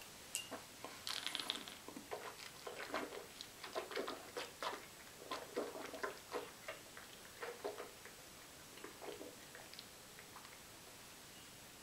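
Faint wet mouth sounds of a person tasting whisky: irregular small smacks and tongue clicks as the spirit is worked around the mouth, dying away about ten seconds in.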